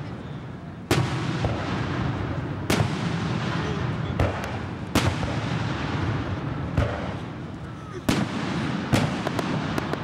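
Aerial fireworks shells bursting: about six sharp bangs one to three seconds apart, with a low rumble and echo filling the gaps between them.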